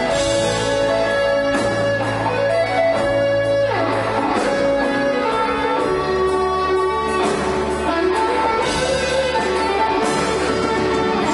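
A live band playing an instrumental passage, with an electric guitar lead over bass. About three seconds in, a long note slides down in pitch.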